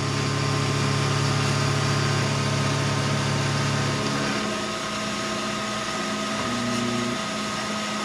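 Vertical milling machine running with a steady mechanical hum. A lower part of the hum drops out about four seconds in, while the rest keeps running.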